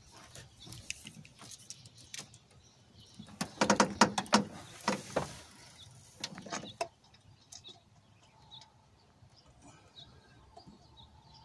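Scattered metallic clicks and taps as intake manifold bolts are set into their holes and started by hand on a 5.7-litre V8, with a cluster of clinks around the middle.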